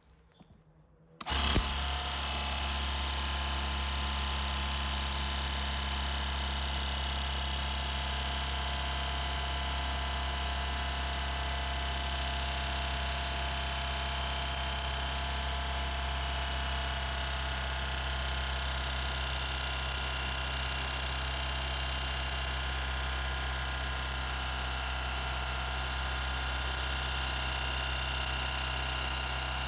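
Parkside PDRA 20-Li D4 cordless pressure washer's electric pump motor starting about a second in and running steadily, a low hum with a hiss above it.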